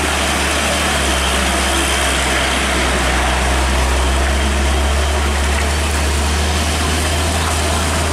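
Heavy Hino diesel truck's engine running steadily at low revs as it swings round a hairpin bend, a deep, even hum, over a steady hiss of rain and tyres on the wet road.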